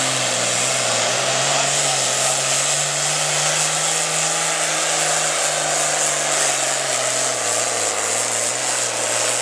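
Super Farm class pulling tractor's turbocharged diesel engine at full throttle under the load of the sled, with a high turbo whine over a steady engine note. The note sags slightly later on as the load builds.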